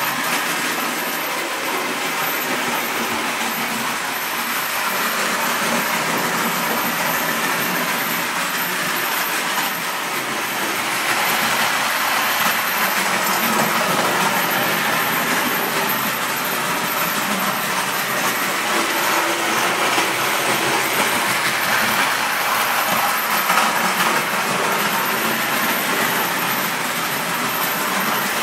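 Distler H0 battery-powered toy trains running on their sectional track: a steady mechanical running noise of small motors and wheels on rails, getting a little louder about a third of the way through.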